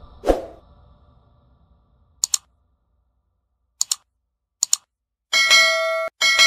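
Outro sound effects: the music fades out under a short thump, then three quick double clicks like mouse clicks, then a bell chime rings, cuts off for a moment and rings again.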